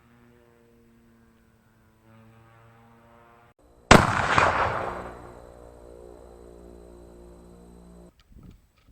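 A single shot from a .308 Savage bolt-action rifle about four seconds in, the report ringing out over about a second, over a steady low hum.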